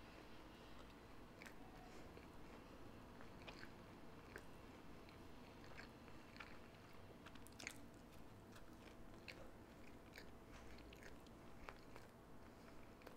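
Faint close-up chewing of a mouthful of breakfast sandwich (Jack in the Box Breakfast Jack), with scattered soft wet mouth clicks at irregular intervals.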